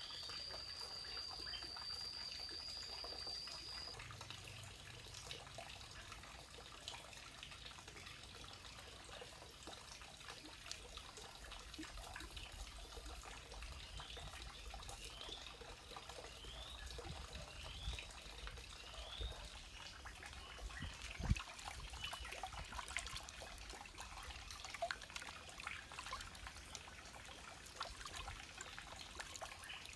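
Hands working wet clay and dipping into a bowl of muddy water: faint wet handling sounds with trickling water and many small clicks, and one sharper knock about two-thirds of the way through.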